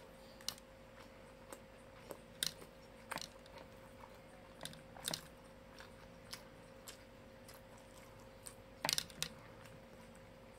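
Close-up eating sounds of fried chicken and rice eaten by hand: scattered short wet clicks and smacks of chewing and fingers working the food, with a quick cluster of louder smacks about nine seconds in.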